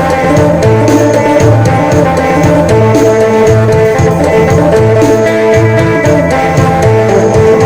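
Isan phin music in the modern phin sing style: a plucked phin lute melody over a held drone, with a drum beat and bass.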